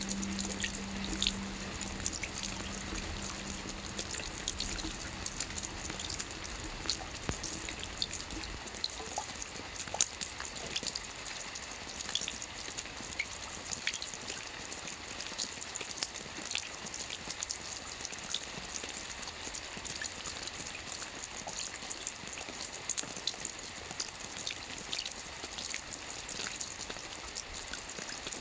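Steady rain falling, an even hiss with many separate drops tapping on a surface. A low musical tone fades out in the first few seconds.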